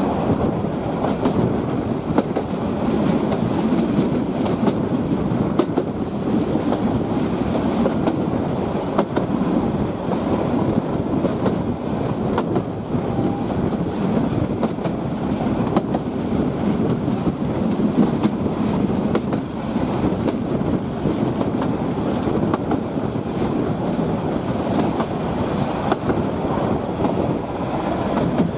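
A train running along the rails: a steady rumble of wheels on track with scattered sharp clicks and clacks.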